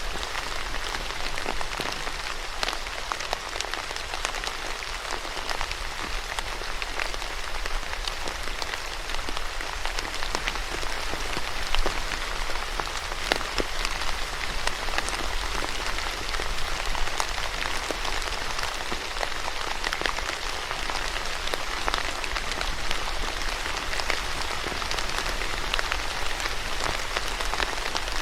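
Steady rain falling: a dense, even hiss dotted with many individual drops landing as sharp ticks.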